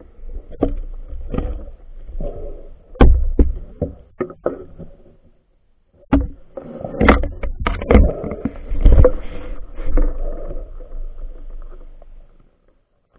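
Muffled underwater handling noise: irregular knocks, thuds and rubbing as a gloved hand and a fish stringer's cord and wire work against a phone's waterproof case. The knocks come in two busy stretches with a short lull between them.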